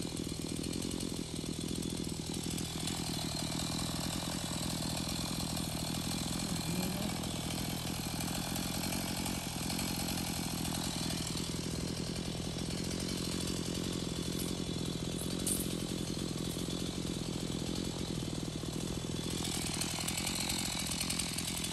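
A petrol chainsaw running steadily, its engine note holding even throughout and turning harsher and hissier near the end.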